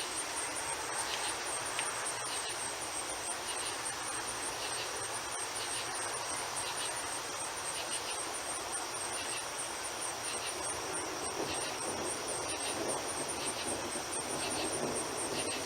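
Night insects calling: a continuous, fast-pulsing high trill with short chirps repeating about once a second, over a steady background hiss.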